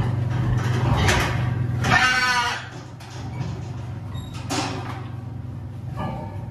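Sows in steel gestation crates being moved out: one pig lets out a short, loud squealing call about two seconds in, among sharp clanks of the metal crate bars and gates, over a steady low hum.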